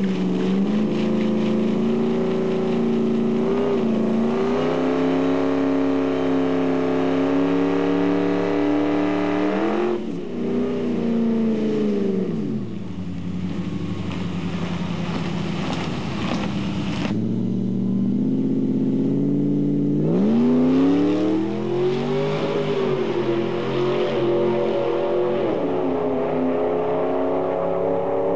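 Ford F-150 SVT Lightning's V8 revving hard and held at high revs through a smoky burnout. The revs fall away about ten seconds in, then climb sharply again about twenty seconds in as the truck pulls away down the strip.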